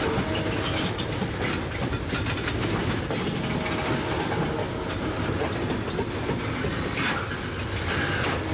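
Freight train tank cars rolling past close by: a steady rumble with the wheels clacking over rail joints.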